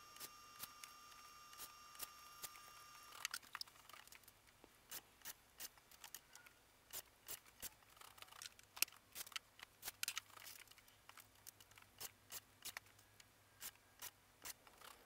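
Light, sharp, irregular clicks and taps of small metal hardware and tools being handled on a cabinet door, such as hinges and a combination square, in a quiet small room. A faint steady high tone runs for the first three seconds and then stops.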